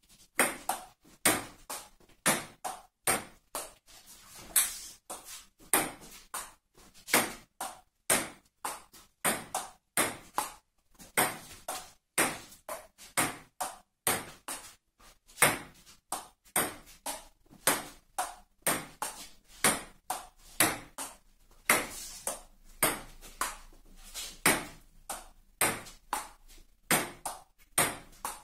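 Table tennis rally: a celluloid-type ping-pong ball clicking off the rubber paddles and bouncing on the table in a steady back-and-forth, about two to three sharp ticks a second.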